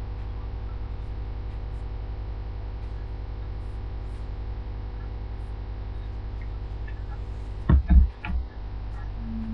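Steady electrical mains hum, with a quick cluster of three or four sharp bumps about eight seconds in as the phone is picked up and handled near the microphone.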